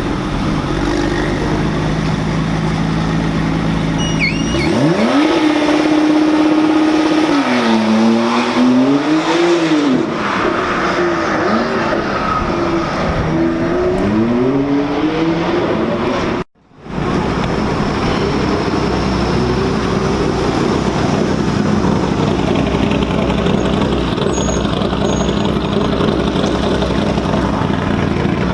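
Rally car engines at high revs. A steady engine drone gives way about four seconds in to a sharp climb in pitch, then several rises and falls as the engine revs and changes gear. The sound cuts out briefly about halfway, then rougher, steady engine noise carries on.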